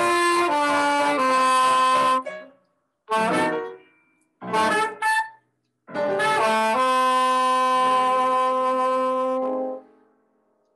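Soprano saxophone improvising a jazz line: a falling run of notes, two short phrases after brief pauses, then one long low note held for about three seconds that fades away near the end as the closing note of the piece.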